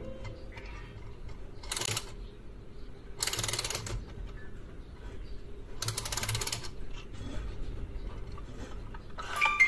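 Winding key of a miniature sewing-machine music box being turned: three short bursts of ratcheting clicks, each under a second long. Near the end the music box's comb starts plucking its tune.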